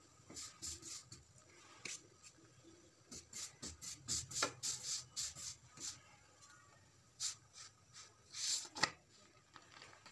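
A spatula scraping and rubbing against a parotha on a nonstick tawa in short, irregular strokes, bunched between about three and six seconds in, with the loudest stroke near the end.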